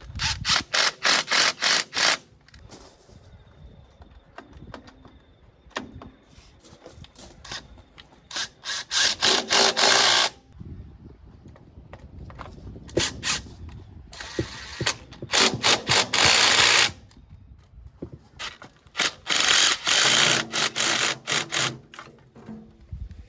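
Ratchet wrench clicking in four bursts of quick strokes, with quieter metal handling between them, as bolts are run down and tightened.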